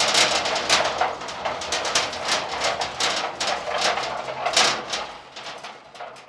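Empty 42U APC NetShelter SX server rack rolling on its casters, with a steady rumble and repeated clattering knocks from the steel frame, dying away near the end.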